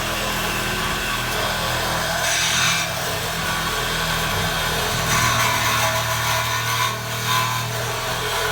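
Power saw cutting through metal, a steady motor hum with louder stretches of cutting about two seconds in and again from about five seconds until shortly before the end.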